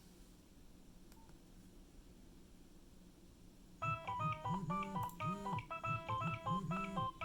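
Nokia 6030 mobile phone playing a polyphonic ringtone. A synthesized melody of short, clean notes over a bouncing bass line starts suddenly about four seconds in, after a faint click and low hum.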